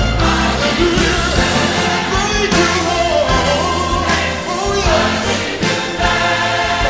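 Gospel praise song: voices singing together over instrumental backing with a sustained bass line.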